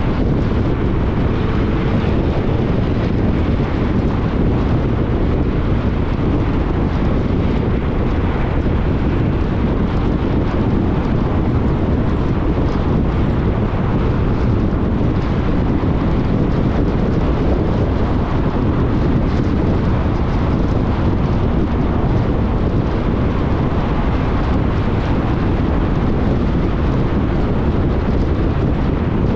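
Steady rush of wind and road noise from a moving car, with no engine note heard.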